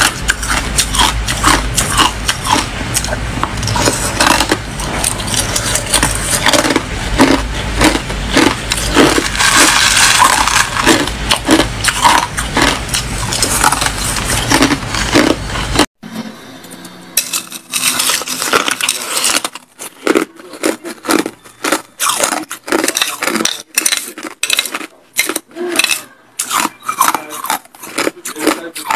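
Ice cubes crunched and cracked between the teeth, a rapid string of sharp cracks, with a metal spoon clinking on the ice and bowl. About sixteen seconds in it cuts to a quieter recording of the same close-up ice chewing.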